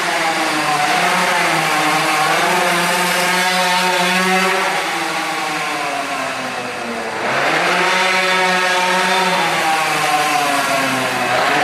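Pit bike's small single-cylinder engine revving hard on a lap, its pitch climbing and falling as it accelerates and backs off for corners, with a deeper drop a little past halfway before it picks up again.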